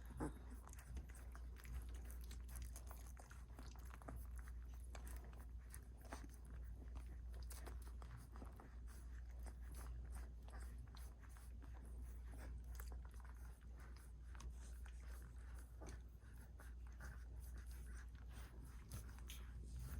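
Seventeen-day-old Welsh Springer Spaniel puppies suckling at their mother's teats: faint, continual wet clicks as they nurse, over a low steady hum.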